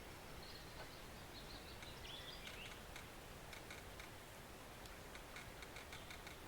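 Faint, steady flow of a small woodland stream, with a bird twittering faintly from about half a second to three seconds in and scattered light clicks throughout.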